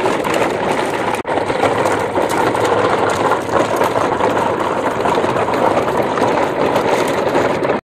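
Plastic toy trucks and trailers with hard plastic wheels rolling and rattling over a dirt track: a steady, dense rattle with a brief break just over a second in.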